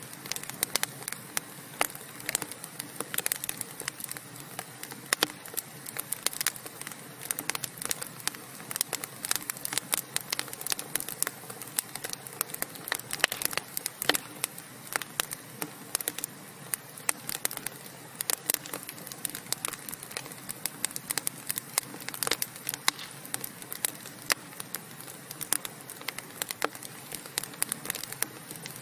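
Wood fire in a fireplace crackling: irregular sharp pops and snaps, several a second, over a steady hiss of burning logs.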